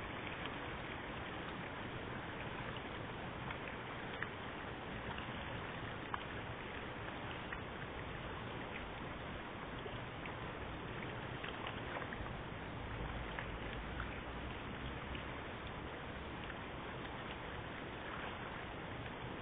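Dense crowd of carp churning at the surface of a concrete pond: a steady wash of water splashing with scattered small ticks and slaps.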